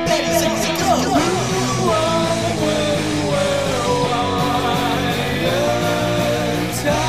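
Opening theme music: a song with a singing voice over instruments, playing loudly and steadily.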